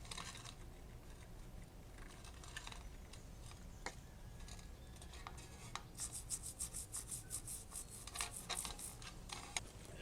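Toothbrush scrubbing a greasy bicycle chain and rear sprocket with kerosene: scattered short scrubbing and scraping strokes, then a run of rapid, even back-and-forth strokes from about six seconds in.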